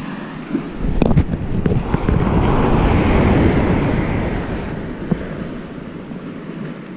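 Surf breaking and washing up the beach, swelling about a second in and easing off after four or five seconds, with wind buffeting the microphone. A few sharp knocks about a second in.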